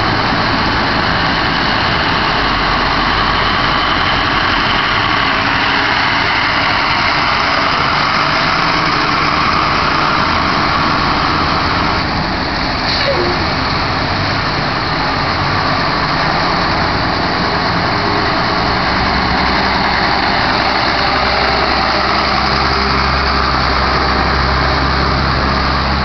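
Several school buses' engines running as the buses pull out and drive by in a line, a steady heavy rumble. About halfway through there is a brief squeak, and in the second half a deeper engine rumble grows louder as a bus comes closer.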